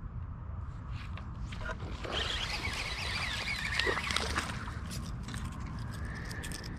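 A small hooked largemouth bass splashing and thrashing at the water's surface as it is reeled up to the boat, loudest for a couple of seconds in the middle, over a steady low rumble.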